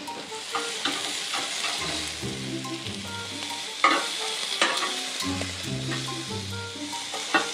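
Chicken breasts and zucchini sizzling steadily on the Weber Traveler LP grill's porcelain-enamelled cast iron grates, with metal tongs clicking sharply a few times as the chicken is moved, loudest about four seconds in and near the end. Soft background music plays underneath.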